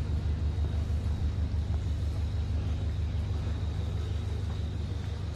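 A DEMU (diesel-electric multiple unit) train's diesel engine idling while the train stands at the platform: a steady, low throbbing hum, with a faint, steady high whine above it.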